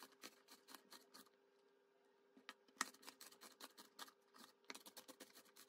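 Near silence: faint scattered clicks and ticks, more of them in the second half, over a faint steady hum.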